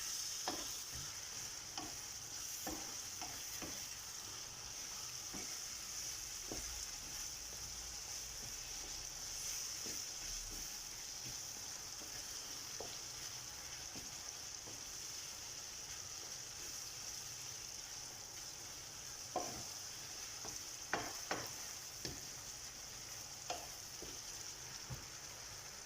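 Onions, tomatoes, spices and tomato paste sizzling steadily in hot oil in a pan while a spoon stirs them, with scattered clicks and scrapes of the spoon against the pan, a few louder ones near the end.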